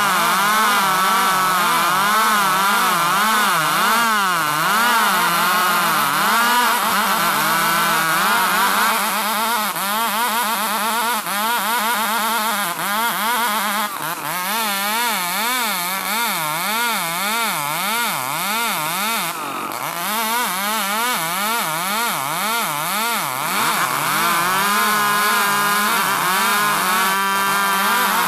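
Two two-stroke chainsaws rip-sawing a log of ulin (Bornean ironwood) lengthwise, both running at high speed. The engine pitch wavers up and down as the saws work through the cut, swinging faster and a little quieter through the middle.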